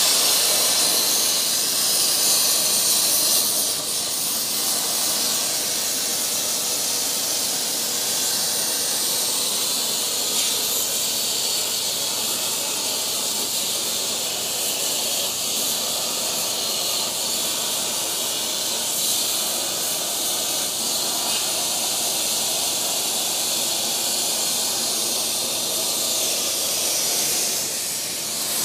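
Plasma arc of a Torchmate 4800 CNC plasma table cutting sheet metal with freshly changed consumables: a steady hiss that starts suddenly as the arc fires and holds through the cut.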